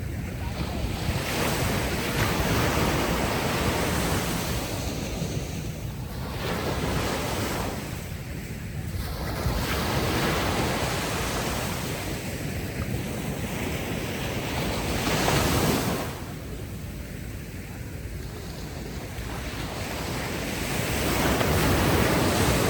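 Ocean waves breaking and washing up a beach, the rush swelling and fading in surges every four to six seconds; one surge cuts off sharply about sixteen seconds in.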